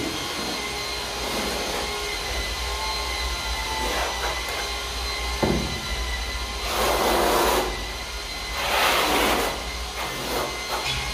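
Notched steel trowel scraping tile adhesive across a concrete floor in two long strokes, over a steady machine hum, with a single knock a few seconds before the first stroke.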